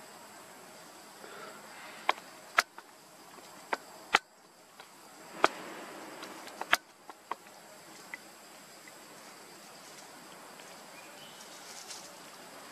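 Steady high-pitched drone of insects in the forest, with a scatter of sharp, short clicks or snaps in the first half.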